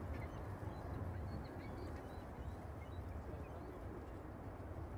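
Steady low rumble of an Airbus A380's four jet engines at takeoff power, heard from a distance, with faint short chirping bird calls over it.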